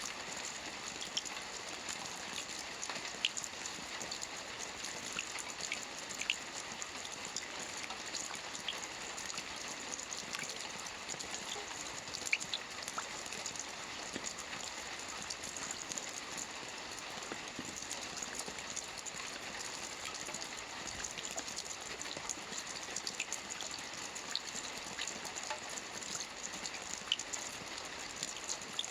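Steady gentle rain: an even hiss with scattered, slightly louder drop ticks.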